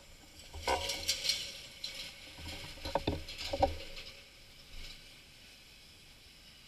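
A few irregular knocks and rattles with rustling noise from a slowly rolling mountain bike and the camera mounted on it. The sharpest knocks come about three seconds in.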